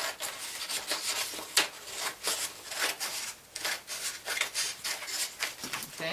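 Scissors cutting through white construction paper in a run of quick, uneven snips, with the sheet rustling as it is handled.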